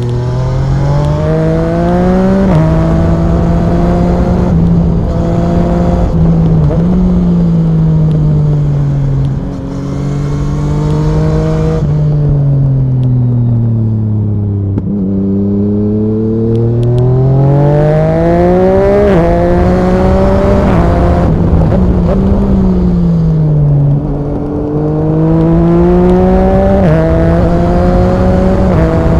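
Yamaha MT-09 SP's inline three-cylinder engine through an Akrapovic Racing exhaust, heard on board while riding. It revs up through the gears, dropping sharply in pitch at each upshift, and falls away as the bike slows. It pulls hard again several times.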